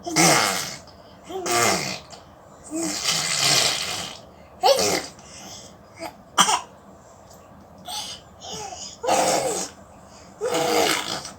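A baby making a string of short, breathy, spluttering vocal noises with pauses between them, about nine bursts in all, in play imitating a car.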